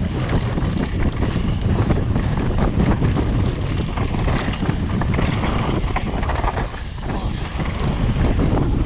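Wind buffeting the microphone as a mountain bike rides a downhill trail, over a continuous rumble of tyres on dirt with many short knocks and rattles from the bike over bumps.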